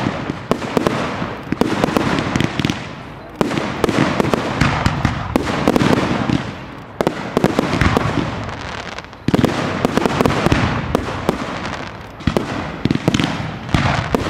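Firework display with shells going off in quick succession: a dense, continuous barrage of sharp bangs and crackling, with louder barrages starting suddenly about three and a half and nine seconds in.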